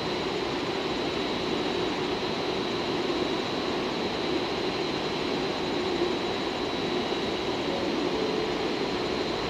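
JR Freight EF510 electric locomotive moving slowly through a rail yard: a steady, even rumble and hum, with a thin, steady high whine over it.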